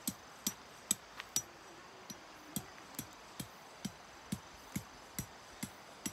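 Tent stakes being hammered in: a steady series of sharp strikes, about two a second.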